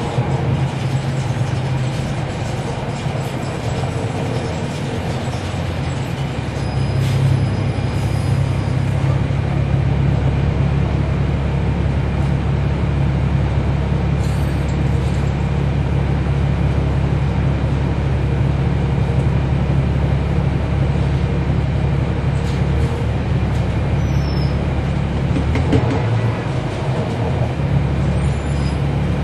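Cummins ISL9 inline-six diesel of a 2012 NABI 40-SFW transit bus running with a steady low drone, heard from inside the bus. The drone grows louder about seven seconds in and then holds steady.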